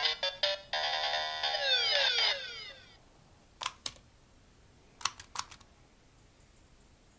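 DX Gamer Driver toy belt playing an electronic video-game sound effect through its small speaker: quick beeps, then a chiptune jingle with fast falling sweeps that stops about three seconds in. After it come a few sharp plastic clicks, two and then three, from the toy being handled.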